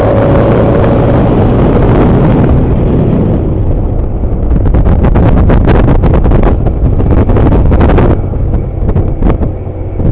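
Loud diesel exhaust of an ALS intercity bus, with the rough 'snoring' note of its legendary exhaust. From about four seconds in it turns into a run of rapid pulses that cuts off suddenly near eight seconds.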